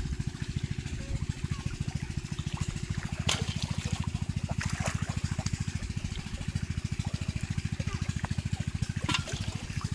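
A small engine running steadily with rapid, even thuds, with a few splashes of shallow water as a fish is grabbed and lifted out dripping.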